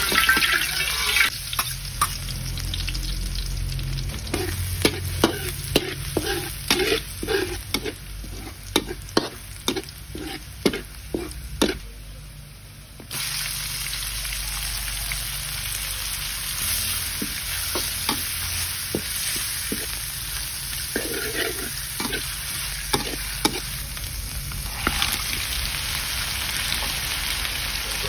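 Oil sizzling in a steel wok while a metal spatula clinks and scrapes against the pan, about two or three strikes a second. About halfway the sizzle suddenly gets louder and steadier as wood ear mushrooms are frying, with only occasional spatula taps after.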